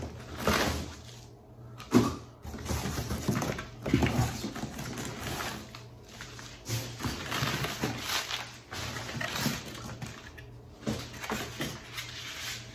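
Crinkled kraft-paper packing and cardboard rustling and scraping as they are pulled out of a shipping box by hand, with a sharp knock or snap about two seconds in.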